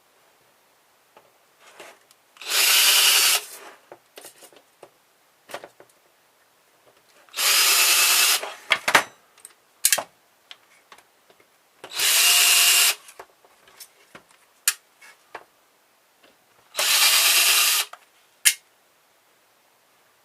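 Power screwdriver backing screws out of a car stereo's metal chassis, running in four short bursts of about a second each, with small clicks and knocks of screws and parts being handled between bursts.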